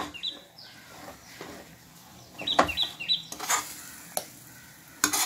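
Steel spatula stirring and scraping thick moong dal paste in ghee in a non-stick kadai, a few scrapes and knocks against the pan. A bird chirps in short runs of quick, falling high notes in the background.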